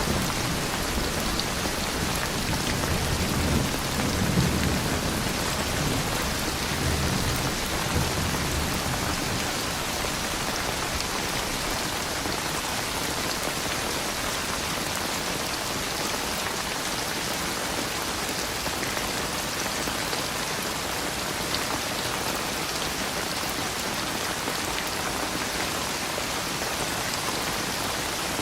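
Steady rain falling on a surface, with a low rumble of thunder through the first few seconds that dies away about a third of the way in.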